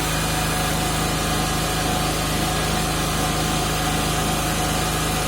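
3 kW portable generator's engine running at a steady speed, with an even hum and no change in level.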